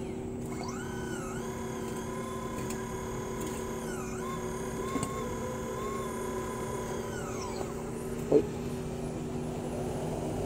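Small electric motors of a remote-controlled model CAT 5110 excavator whining over a steady low hum, the whine rising and falling in pitch as the boom lifts, dumps the bucket and swings. One short knock comes about eight seconds in.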